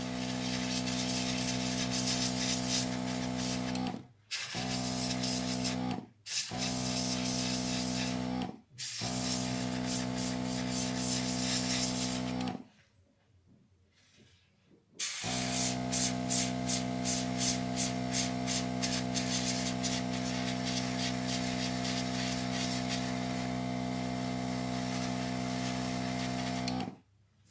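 Airbrush spraying paint, a steady hiss over the constant hum of its air compressor, cut off briefly several times and once for about two seconds in the middle.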